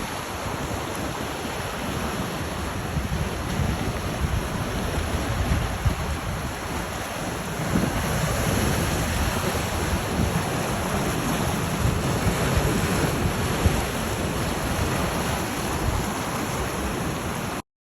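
Steady rushing noise of wind and surf, with wind buffeting the microphone, cutting off abruptly near the end.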